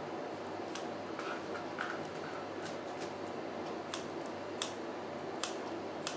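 Kitchen scissors snipping food into small pieces: a handful of sharp, irregularly spaced clicks as the blades close.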